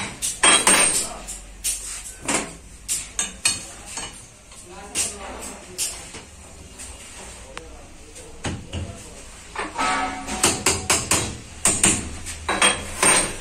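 Metal parts of a truck spring brake chamber clinking and knocking as they are handled and fitted together in a press: many irregular sharp taps, busiest at the start and again near the end.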